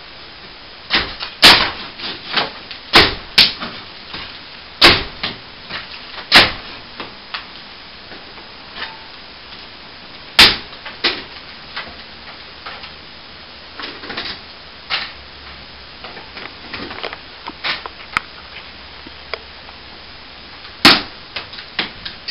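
Irregular knocks and bangs of a ceiling vent being worked and pried loose from the plaster ceiling, a dozen or so sharp strikes with pauses between. The vent is stuck fast.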